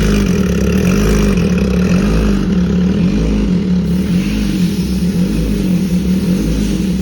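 MV Agusta Brutale 1000 Serie Oro's inline-four engine running loud, its note rising and falling gently in a steady rhythm, about every three-quarters of a second.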